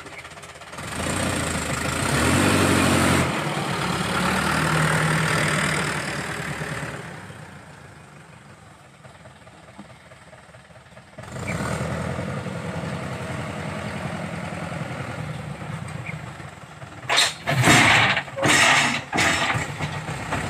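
Landini farm tractor's diesel engine running under load while it pushes and drags soil with a rear blade, its pitch and loudness rising and falling. It drops quieter for a few seconds, comes back abruptly louder about halfway, and a few loud rough bursts come near the end.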